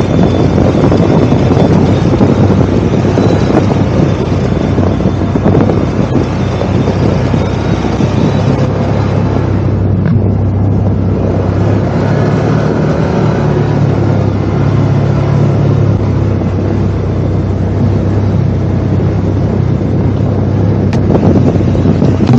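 ATV engine running steadily while under way, a low hum under rough wind buffeting the microphone.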